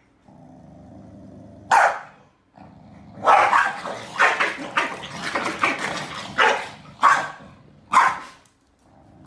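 Corgis play-fighting: a low growl with one sharp bark, then a dense run of barking and growling, ending in a few separate loud barks.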